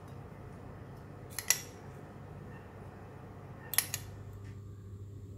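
A metal spoon clinking against a small glass bowl and the plate as fried shallots are spooned out: two short bursts of clinks, about a second and a half in and again near four seconds in, over low room noise.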